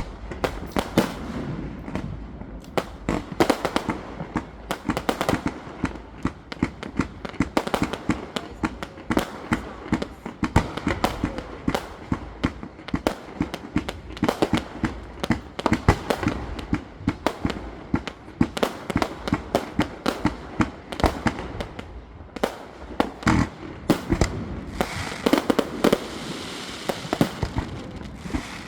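Fireworks exploding in rapid, irregular succession, many sharp bangs and cracks overlapping without a break, growing into a denser crackle near the end.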